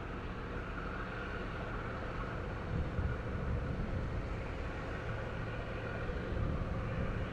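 Steady low drone of a large car carrier's engine passing through the strait, mixed with outdoor noise; it swells slightly about three seconds in.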